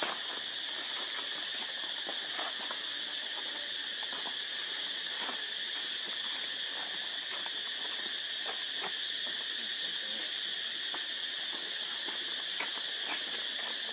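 Steady high-pitched insect chorus droning without a break, with faint scattered scratches and rustles of a baby macaque moving over dry dirt and leaves.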